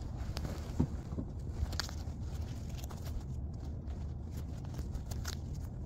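Soft rustles and faint crinkles from hands unpacking a plush toy from its cardboard box and fluffing it out, over a low steady rumble.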